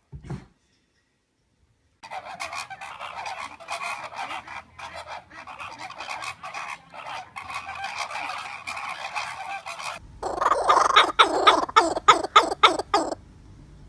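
Birds calling: a dense chatter of many overlapping calls, then, after an abrupt change about ten seconds in, a louder run of about ten rapid, sharp calls that stops near the end.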